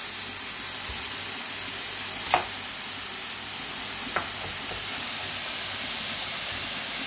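Chanterelle mushrooms frying in olive oil in a hot pan, a steady sizzle. Two sharp knocks cut through it, about two and a half seconds in and again about four seconds in.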